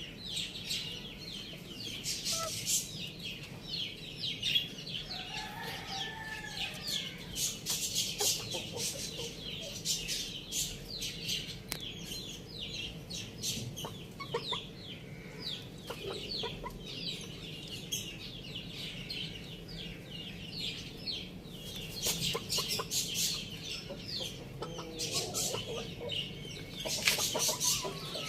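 Chickens clucking, with a steady stream of short, high chirps and a few lower calls now and then.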